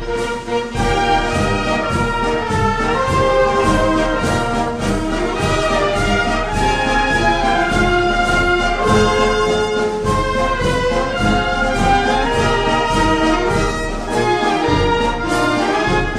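Orchestral soundtrack music led by brass, with sustained chords.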